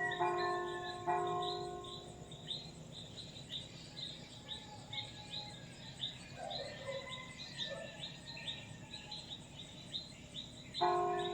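Church bell struck twice about a second apart, each stroke ringing out with several pitches, then struck again near the end. Under it a bird repeats a short, high, falling chirp about twice a second.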